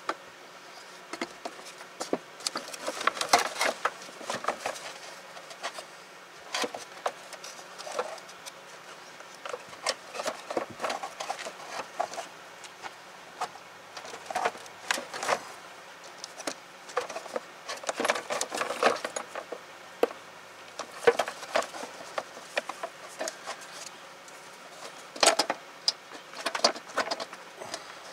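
Hands working in a car's engine bay: irregular clicks, knocks and rattles of hard plastic parts as the air cleaner housing is lifted off and handled, coming in several short clusters.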